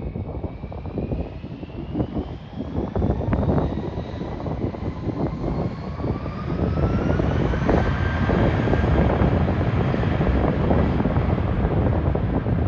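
Airbus A319's twin jet engines spooling up on departure: a whine that climbs in pitch and then levels off, over a heavy rumble that grows louder about halfway through.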